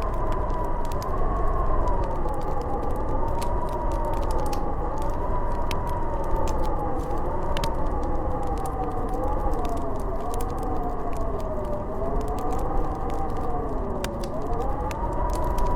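Howling snowstorm wind: several whistling tones that waver slowly up and down over a low rumble, with a wood fire crackling in scattered sharp clicks.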